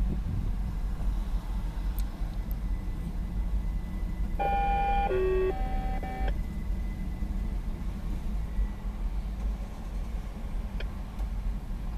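Car running and rolling slowly, heard from inside the cabin as a steady low rumble. About four and a half seconds in, a short three-note electronic chime sounds, lasting about two seconds.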